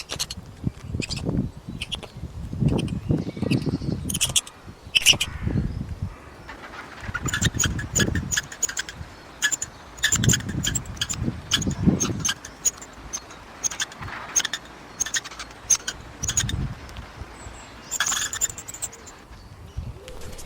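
Rapid series of short, sharp animal chirps and clicks, thickest through the middle, with low rumbling bursts of noise in between.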